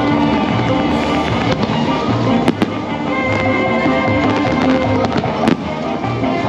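Fireworks bursting over the show's music, with sharp cracks standing out as a quick pair about two and a half seconds in and again about five and a half seconds in.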